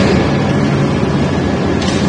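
Ring rolling machine running as it rolls a red-hot ring: a loud, steady mechanical drone with a low hum, with brief hisses at the start and near the end.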